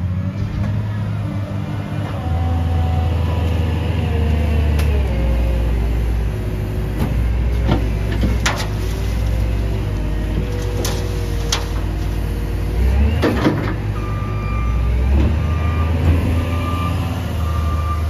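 Wheel loader's diesel engine running and revving under load as it lifts and dumps a bucket of leaves into a rear-loader garbage truck's hopper, with a few sharp metal knocks in the middle. Near the end, a backup alarm beeps steadily.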